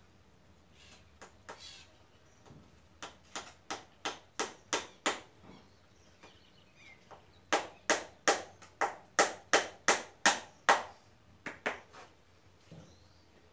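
Farrier's hammer striking horseshoe nails into a horse's hoof: two runs of sharp metallic blows at about three a second, the second run louder, with a few lighter taps before and after.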